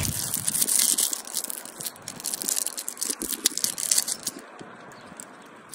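Plastic twist-wrap of a toffee sweet crinkling as it is picked open by hand: a dense crackle for the first couple of seconds, thinning to scattered crackles and fading out near the end.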